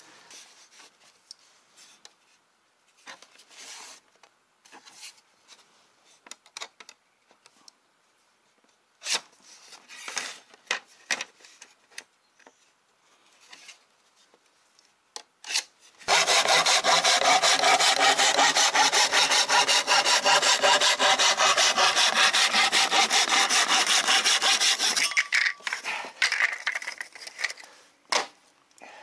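A power saw cutting thin plywood: one continuous, even cut of about nine seconds that starts sharply just past the middle and stops abruptly. Before it, scattered light knocks and rustles of boards and a ruler being handled.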